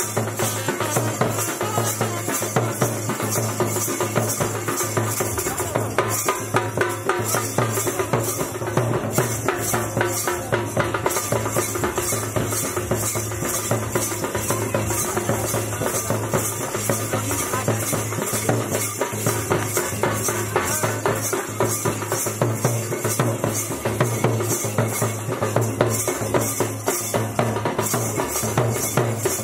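Nepali panche baja wedding band playing dance music: drums and clashing cymbals keep a steady, driving beat under a trumpet melody.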